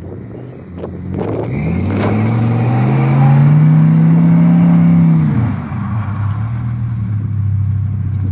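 Truck engine revving hard under load while pulling a stuck vehicle out of deep snow on a tow strap: the revs climb from about a second in, hold high for a couple of seconds, then drop back to a steady idle.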